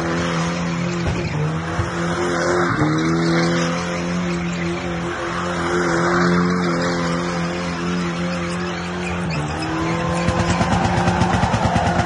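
Toyota KE70 Corolla spinning donuts, its engine held high in the revs with brief dips, and tyre squeal swelling and fading as the car circles. Near the end the sound pulses rapidly.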